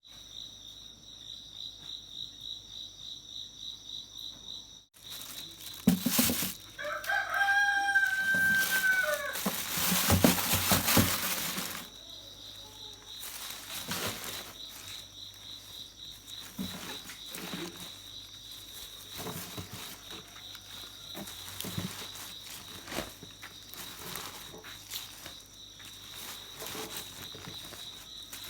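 A rooster crows once, a long held call about seven seconds in, amid a few seconds of loud rustling noise. A steady high insect buzz runs underneath, with scattered light knocks.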